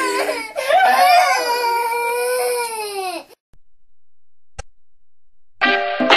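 Baby crying loudly in long wails, the last one falling away and cutting off abruptly about three seconds in. After a short silence with a single click, music starts near the end.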